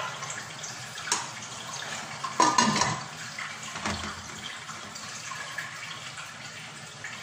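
Aluminium lid set onto a large aluminium stockpot, a ringing metallic clank about two and a half seconds in, with a few lighter knocks of handling around it, over a steady hiss.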